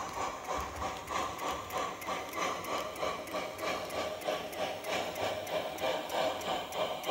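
Model steam locomotive's DCC sound decoder playing steam exhaust chuffs through the tender speaker, a steady rhythm of about three chuffs a second.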